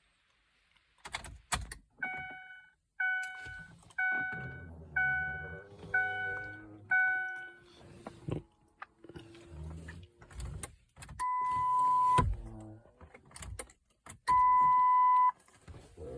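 A 2004 Ford Freestar minivan's cabin warning chime sounds six times, about once a second, after keys jangle. Then a long steady beep is followed by one sharp, loud click as the key is turned, with the engine not cranking, and another long beep. Some suspect an anti-theft system fault behind the single click and no crank.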